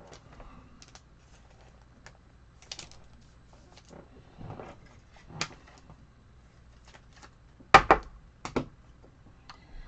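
Scattered light clicks and taps of small hard objects being handled, with a cluster of sharper clacks about eight seconds in.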